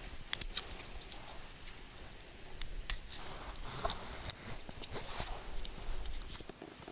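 Garlic cloves being cut in half with a small pocket knife, their dry papery skins crackling: an irregular run of sharp clicks and crackles.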